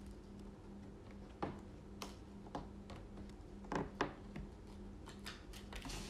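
Scattered small taps and clicks of tape being peeled from its backing and pressed onto a fingerboard deck against a wooden table, the loudest two close together about four seconds in. A faint steady hum sits underneath.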